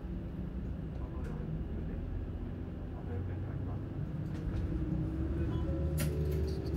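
City bus engine heard from inside the passenger cabin as the bus pulls away, its hum growing louder and rising in pitch as it accelerates. A sharp click comes about six seconds in.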